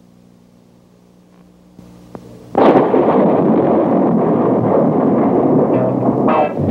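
A faint low hum, then about two and a half seconds in a sudden, loud explosion-like blast whose dense rumble carries on for several seconds.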